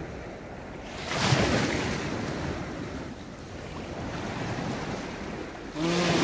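Small waves washing in over a shallow stony shoreline, with a surge of wash about a second in and another near the end.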